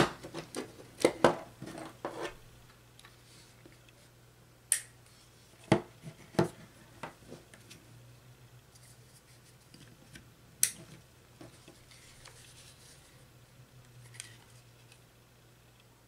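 Sharp plastic clicks and handling taps of RJ45 plugs being pulled from and pushed into the jacks of a handheld network cable tester: a quick run of clicks in the first two seconds, then single clicks a few seconds apart, over a faint low hum.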